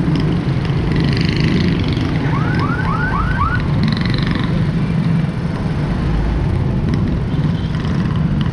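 Steady city road traffic noise, heard from a bike moving with the traffic. About two and a half seconds in, five quick rising chirps sound in a row, at about four a second.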